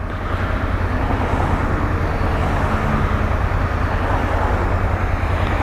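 Honda Transalp 700's V-twin engine idling steadily, with city traffic driving past.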